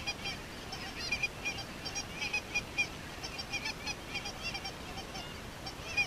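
A flock of geese calling: many short, high calls overlapping in a steady chatter.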